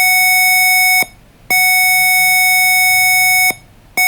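Smoke-alarm tone from the KidBright board simulator's buzzer, set off by its gas and smoke sensor detecting smoke: a loud, steady, buzzy beep held about two seconds at a time with short gaps. One beep ends about a second in, the next sounds for two seconds, and a third starts near the end.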